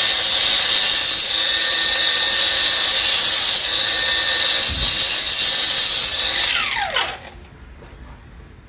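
A power tool's spinning wheel deburring the outside edge of a freshly cut tube end, a loud steady grinding hiss. About seven seconds in the motor is switched off and winds down, its pitch falling, leaving quiet.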